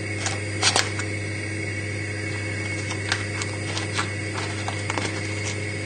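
Scattered light clicks and taps of a knife cutting a block of butter into cubes on its foil wrapper, over a steady low hum.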